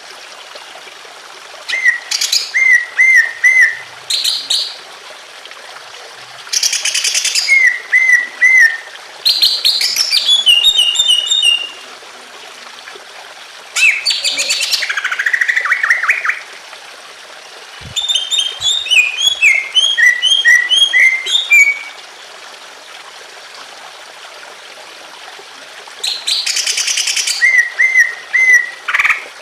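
Green leafbird (cucak ijo) singing in loud bursts of quick whistled and chattering phrases every few seconds, over a steady trickle of running water.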